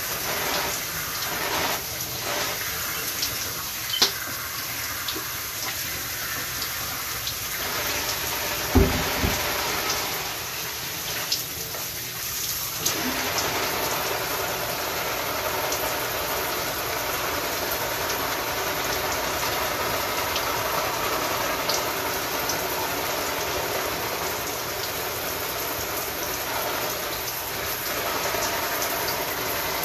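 Shower spray running and splashing, uneven at first and then steady from about thirteen seconds in. There is a sharp knock about four seconds in and a dull thump about nine seconds in.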